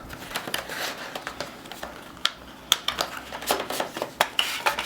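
A small SSD retail box being opened and its contents handled: a run of sharp clicks and short rustles of cardboard and plastic packaging.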